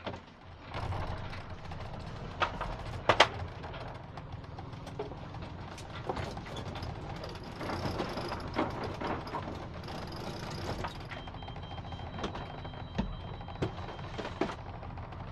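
Sailing yacht's auxiliary engine running steadily while the jib is furled in by hand: a winch ratchet clicks as the furling line comes in, with two sharp clacks about three seconds in. A faint high steady tone sounds for a few seconds near the end.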